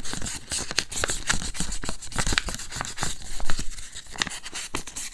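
1500-grit abrasive paper rubbing in quick, short, scratchy strokes on a small steel Necchi Supernova tension disc. It is sanding out a tiny indentation in the steel so that the thread will not hang up in it.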